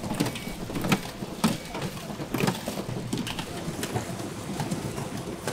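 Sweet potato balls frying in a wok of hot oil, sizzling, while metal wire strainers clink and scrape against the wok with a few irregular knocks every second.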